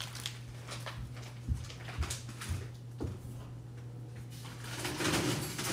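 A few short knocks and clatters of kitchen items being handled and set down, with a steady low hum underneath.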